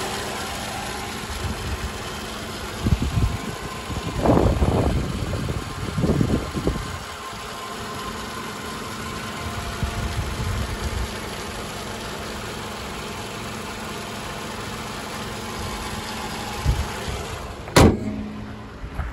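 2010 Toyota Camry SE's 2.5-litre four-cylinder engine idling steadily with the hood open, sounding good. A few handling rumbles come a few seconds in, and near the end the hood is shut with a single loud slam.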